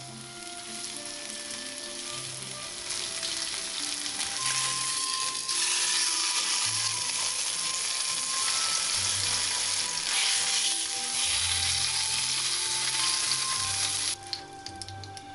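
Beef roast searing in melted butter in a frying pan: a loud, steady sizzle that builds over the first few seconds and stops suddenly near the end.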